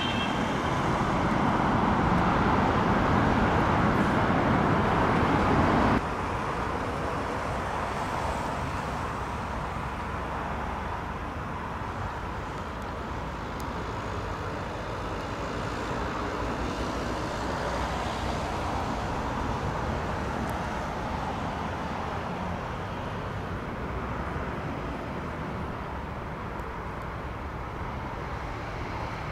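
Road traffic noise as cars drive past for about six seconds. It cuts off suddenly to a quieter, steady outdoor hum of traffic and truck engines as Scania fire trucks pull out of their station. No siren is heard.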